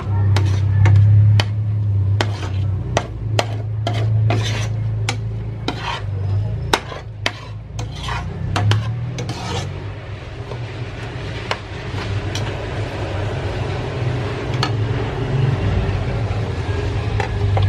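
A metal spoon stirs diced vegetables sautéing in a pot, clinking against the pot two or three times a second for about the first ten seconds, then scraping more softly. A steady low hum runs underneath.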